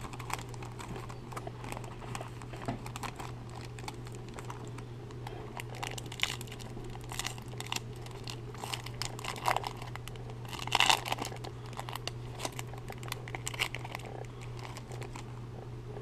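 Foil wrapper of a Topps Stadium Club baseball card pack crinkling and tearing as it is opened by hand, with the loudest burst of crinkling about eleven seconds in. A steady low hum runs underneath.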